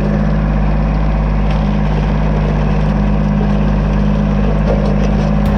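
Kubota L2501 tractor's three-cylinder diesel engine running at a steady speed as the tractor pushes snow with its front snow pusher.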